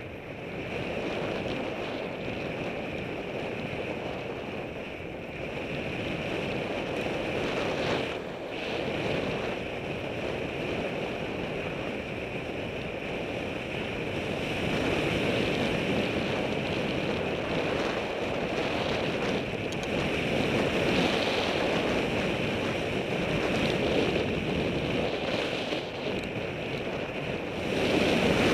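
Wind rushing over a helmet camera's microphone on a bicycle moving at speed, mixed with road noise. A steady rush that grows louder about halfway through and again near the end.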